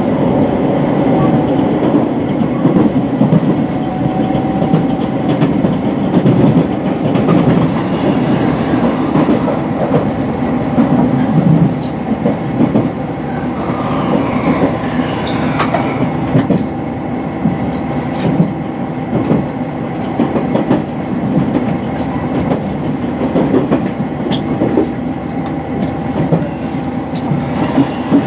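Running noise inside the passenger car of a HOT7000-series diesel express train: a continuous rumble with the wheels clicking over rail joints.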